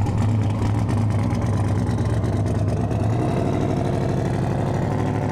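Vehicle engine running at a steady, unchanging speed, a constant low hum while driving slowly.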